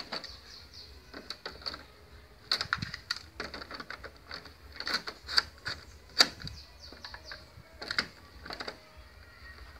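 Irregular plastic clicks and clatter of a cassette tape and its case being handled and loaded into the cassette deck of a CCE SHC-9900 stereo.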